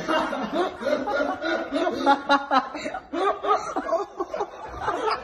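A person laughing, a long run of short giggles.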